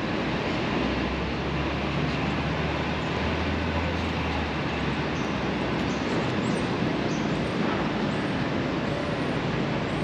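Steady city traffic noise, with a low engine hum from a nearby vehicle for the first few seconds.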